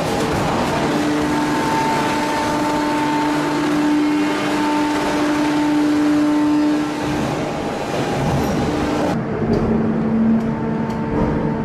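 Industrial machinery running loudly, with a steady whine over dense noise; about nine seconds in the sound changes suddenly to a lower steady hum.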